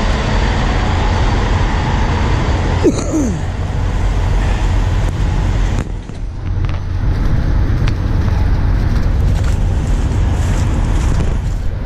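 Steady low rumble of vehicle engines and traffic noise, with a brief falling squeak about three seconds in.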